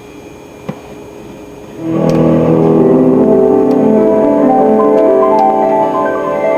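Music playing from the computer, with layered, sustained piano- or keyboard-like notes that come in loudly about two seconds in, after a quiet start with one small click. It is test playback from the newly installed disc drive.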